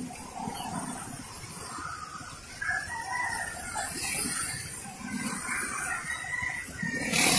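Motorcycle running slowly in traffic with steady engine and road noise, and a rooster crowing from the roadside in the middle of it.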